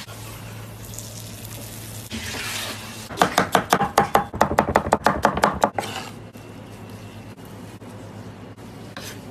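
A large knife rapidly chopping leafy greens on a plastic cutting board, a quick run of sharp strikes at about six or seven a second. The run starts about three seconds in and stops at about six seconds. A steady low hum comes before it.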